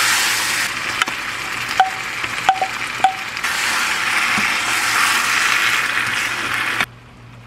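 Spicy squid and pork belly stir-fry sizzling in a frying pan as a spatula turns it. Several spatula taps against the pan between about one and three seconds in, each with a short ring. The sizzle stops abruptly near the end.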